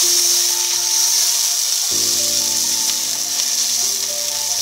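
Sliced onions sizzling as they fry in oil in a pan, a steady hiss, under background music of held chords that change about two seconds in.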